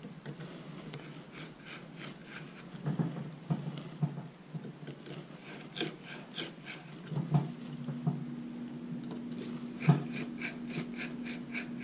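Hand tool tightening the mounting hardware of a hydrofoil on a small outboard's aluminium cavitation plate: runs of quick, even clicks, about five or six a second, with handling knocks in between. A steady low hum comes in past the middle.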